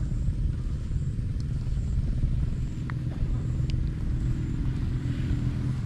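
An engine running steadily at idle, a low, even rumble.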